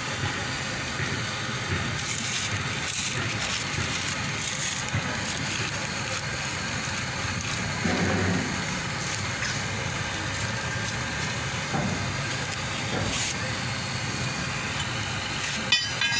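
Steady outdoor background noise with a few small knocks, and a sharp click near the end followed by brief high tones.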